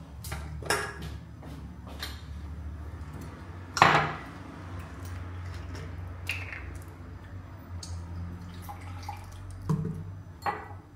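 Fork and knife clinking and scraping on a plate while cutting food, with several sharp clinks, the loudest about four seconds in, over a low steady hum.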